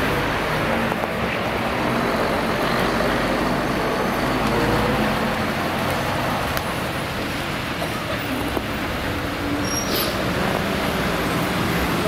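Steady city street traffic: cars and buses running on the road, with a low engine hum.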